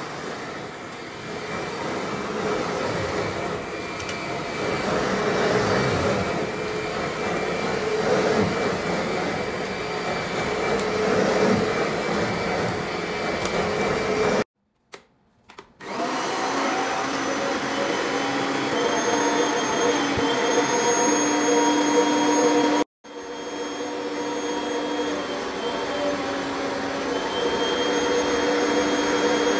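Upholstery vacuum motor running as a vibrating vacuum head is worked over a fabric sofa; the sound breaks off about halfway through, then resumes as a steadier, higher whine from a hose-and-wand upholstery vacuum, with another brief drop about two thirds of the way in.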